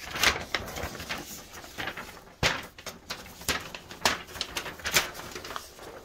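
A large folded paper instruction manual being folded back up by hand: a run of paper rustles and crinkles, with a sharper crackle about two and a half seconds in.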